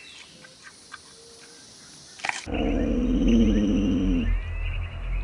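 A dog making a low, wavering vocal sound that lasts about three seconds and drifts slightly down in pitch, starting abruptly about two seconds in. Before it there are only faint clicks.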